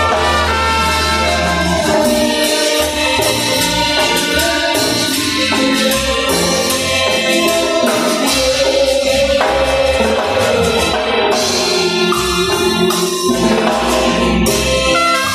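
Upbeat Latin gospel-style music played on synthesized instrument sounds from the Caustic music app: bass, tambourine-like percussion and a sustained melody line that slides down in pitch about nine seconds in.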